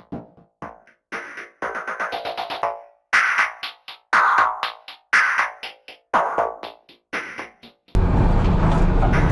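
Electronic background music made of sharp, choppy percussive hits separated by brief silences. About eight seconds in, a loud steady sound with a heavy low end takes over.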